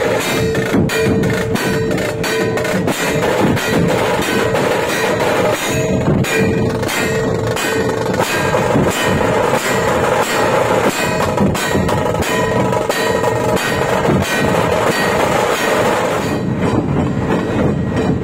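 A dhol-tasha ensemble playing: many large two-headed dhol drums beaten with sticks in a loud, fast, unbroken rhythm, with a metallic ringing over the drums.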